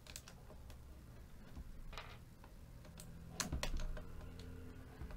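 Sharp plastic clicks of mechanical keyboard switches being pulled out of a desoldered keyboard PCB with a switch puller: a handful of separate clicks, the loudest cluster about three and a half seconds in, over a low steady hum.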